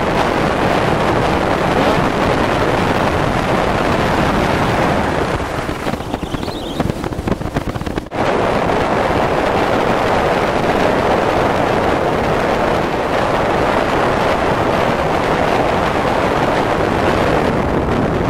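Wind buffeting the microphone on a moving motorboat, with the rush of water and engine noise underneath. It eases for a couple of seconds about six seconds in, breaks off sharply at about eight seconds, then comes back as strong as before.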